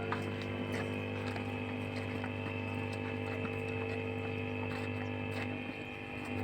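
Steady electrical hum with several steady tones, dipping briefly near the end, with a few faint clicks.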